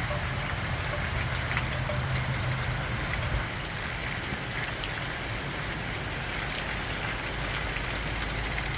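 Heavy rain in a downpour, a steady, even hiss of rain coming down hard.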